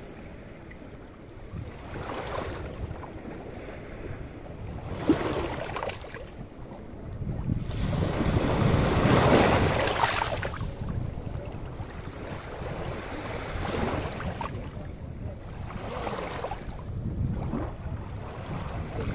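Sea waves washing onto a sandy beach in repeated swells, the biggest about nine seconds in, over a low wind rumble on the microphone. A short tap about five seconds in.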